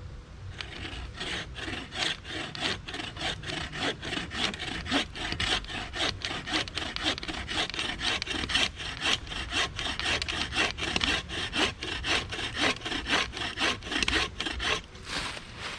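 Bow saw cutting through a small tree trunk with rapid, even push-and-pull strokes, about four rasps a second, starting about half a second in: the back cut of a tree felling.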